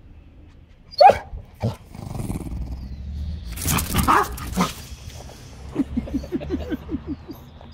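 Jack Russell terrier barking and snarling: one sharp, loud bark about a second in and another just after, a tangle of barks and snarls around the middle, then a quick string of short growling yaps near the end.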